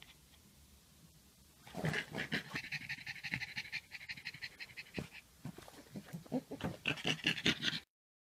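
Pug panting in quick, even breaths, starting about two seconds in and cutting off suddenly near the end.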